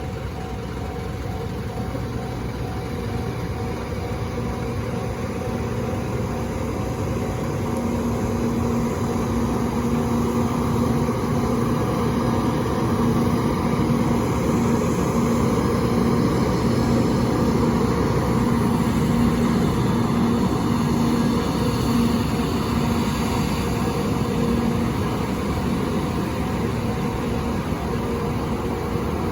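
Doctor Yellow, the yellow Shinkansen inspection train, running slowly over a level crossing: a steady rumble that swells over the first twenty seconds and then eases slightly. A low steady hum comes in after about eight seconds and stops a few seconds before the end.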